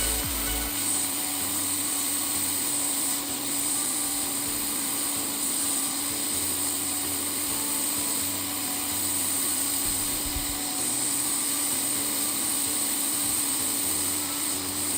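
Steady rush of blown air with a constant low hum, from a small motor-driven blower running without a break.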